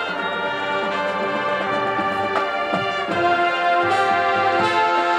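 High school marching band playing: brass and woodwinds holding full sustained chords that change every second or so, with percussion strikes from the drums and front ensemble. The music grows a little louder about three seconds in.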